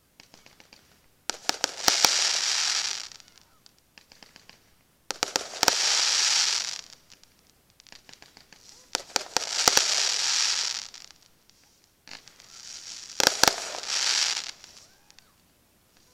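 Fireworks going off four times, every three to four seconds. Each time there is a quick cluster of sharp cracks, then about one and a half seconds of dense hissing crackle that dies away.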